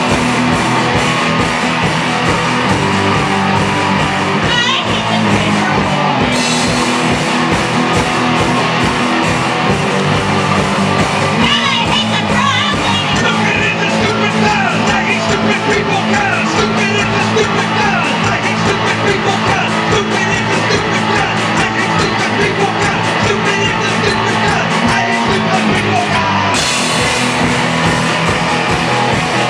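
Live punk rock band playing loud and steady, with electric guitars, a regular driving drum beat and shouted singing.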